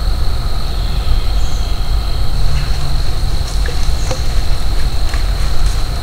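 A steady low rumble with a thin, high insect-like tone held throughout. From about halfway, a few faint crackles sound, like dry leaves being stepped on.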